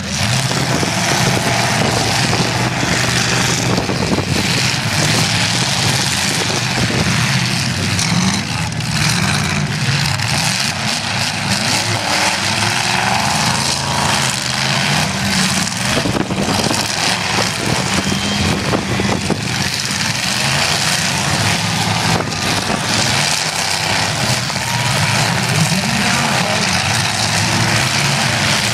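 Several demolition derby cars' engines running and revving hard, rising and falling in pitch, with sharp knocks from time to time as cars collide.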